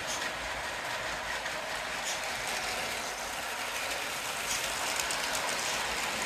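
Motorised LEGO freight train, a Ce 6/8 "Crocodile" hauling brick-built freight wagons, rolling along plastic LEGO track. It makes a steady rattling run of plastic wheels on plastic rails with a few faint clicks.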